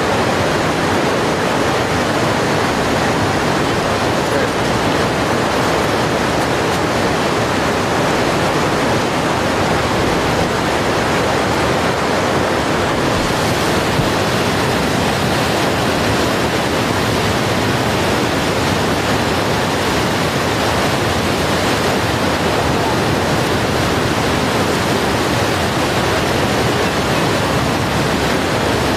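Steady rushing of whitewater river rapids, a loud even hiss that brightens slightly about halfway through.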